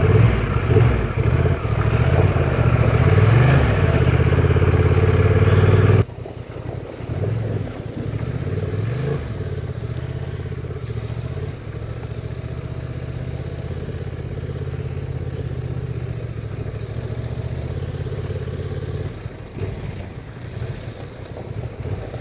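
Honda Transalp motorcycle engine pulling at low revs on a slippery dirt trail, the revs rising and falling as the rider works the throttle. The sound drops abruptly about six seconds in to a quieter, steadier engine note, with another brief rise in revs a few seconds later.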